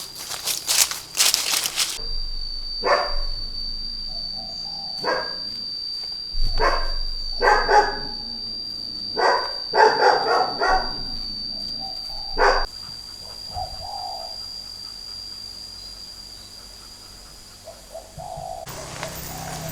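A dog barking in a series of irregular barks, about nine in all, stopping about two-thirds of the way through, over a steady high thin tone.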